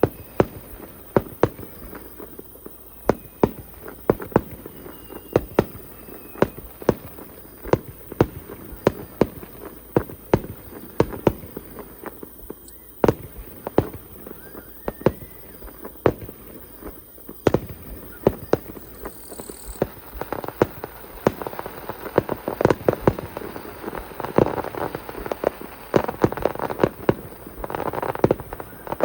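Festival fireworks going off: a steady run of sharp bangs, roughly one or two a second, growing denser with a thicker mass of bangs and crackle from about two-thirds of the way through.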